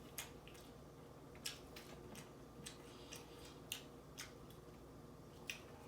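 Faint mouth sounds of someone chewing a cheeseburger: scattered wet smacks and clicks at irregular intervals, over a low steady hum.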